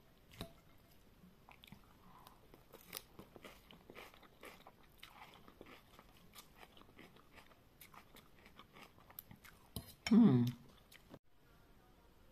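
Close-up eating sounds from a bowl of bakso noodle soup: soft chewing and mouth sounds with scattered small clicks of utensils. About ten seconds in there is a short pitched vocal sound, then the sound cuts off suddenly.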